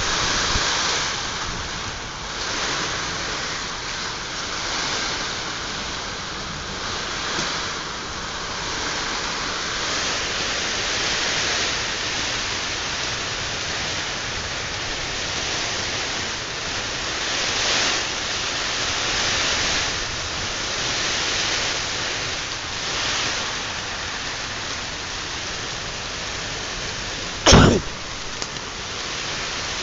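Heavy nor'wester storm rain, a steady hiss that swells and eases in gusts. A single sharp click near the end.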